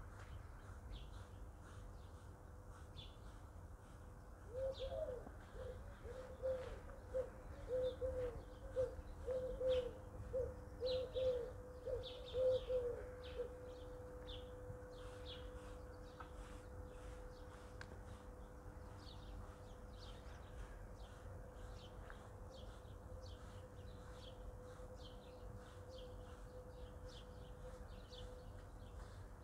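Birds at dawn: small birds chirping throughout, with a low cooing call repeated about ten times in the first half. A faint steady hum at the same pitch continues to the end.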